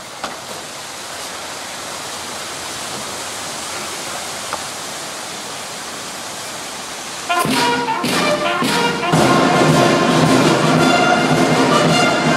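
A steady rushing hiss for about seven seconds, then brass band music starts abruptly and plays on with drum strokes.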